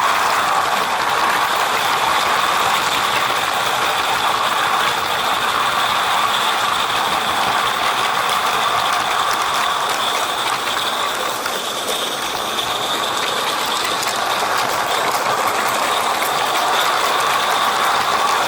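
Live-steam 16mm-scale model locomotive under way with a long train of empty goods wagons on 32mm-gauge track: a steady run of rattling and fine clicking from the train.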